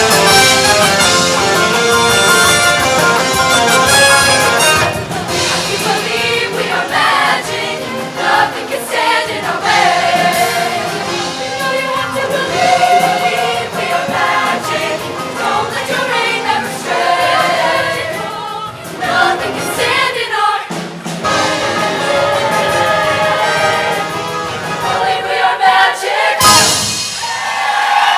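Show choir singing with a live band accompanying.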